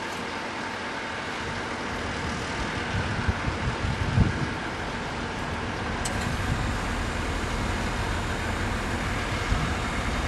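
A DE10 diesel-hydraulic locomotive's V12 diesel engine starting up. Its low running sound builds over the first few seconds, with a couple of louder thuds about three and four seconds in, then runs steadily.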